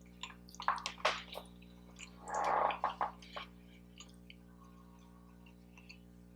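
Close-miked wet eating sounds: chewing and lip smacks as a bite of breakfast sausage dog is eaten, a cluster of squishy clicks at first and a short noisy burst about two and a half seconds in.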